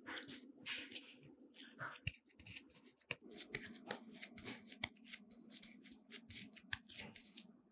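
Hands pinching bread dough closed over a filling and then rolling the dough ball between the palms: a quick run of soft rubbing, tacky and tapping sounds, over a low steady hum.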